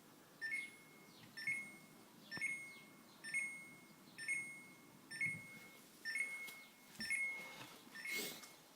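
Samsung RB29FERNCSS refrigerator's control board sounding its fault alarm: a short high beep repeating steadily about once a second. The alarm signals that the inverter compressor will not start, a fault later traced to a shorted IGCM04G60HA driver chip on the compressor inverter board.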